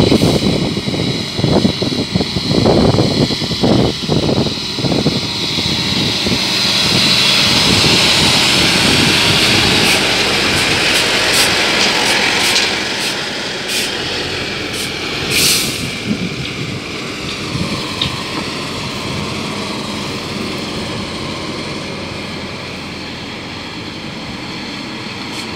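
Tatra T 2-148 S3 tipper truck's air-cooled V8 diesel approaching, passing close and pulling away. It runs loudest mid-way with a broad rush of engine and cooling-fan noise, with a few sharp clicks and a short hiss, then fades steadily as the truck drives off.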